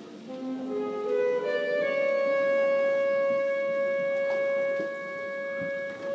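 School concert band playing a soft wind passage: a few short notes step upward, then one long note is held, with the band fading back in near the end.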